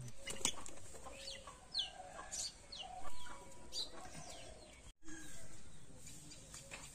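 Chickens clucking, with scattered short high chirps over the first few seconds.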